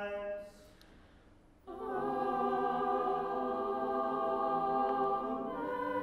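A solo cantor's chanted phrase ends about half a second in. After a short pause the church choir answers with a sung Amen to the collect, a full chord held for several seconds, moving to a new chord near the end.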